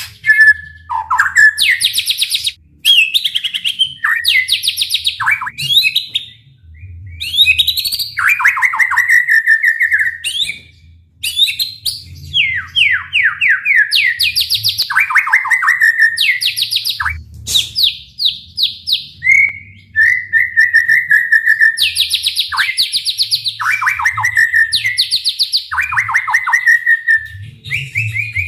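White-rumped shama singing a long, loud run of varied phrases: fast rattling trills, downward-sliding notes and clear whistles, separated by short pauses. This is the bird in full 'gacor' song with rapid-fire 'tembakan' bursts, the kind keepers play to rouse other shamas into singing.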